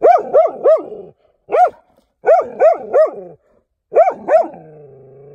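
Dog barking in quick bursts of three or four short barks with short pauses between them, ending in a longer, low steady note.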